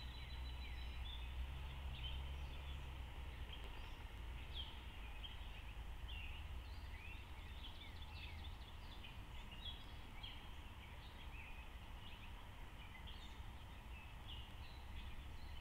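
Birds chirping: many short, overlapping chirps throughout, over a steady low rumble that eases after the first half.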